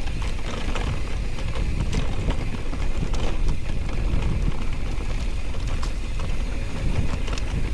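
Mountain bike riding a rough dirt trail: wind buffets the microphone over a steady low rumble of tyres on the ground, with scattered rattles and clicks from the bike.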